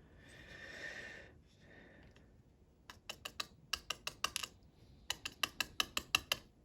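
Small hard lock parts being worked during gutting of a pin-tumbler lock: a short scrape about a second in, then two quick runs of sharp clicks, about six a second, like tapping or rattling the lock body to free the pin stacks.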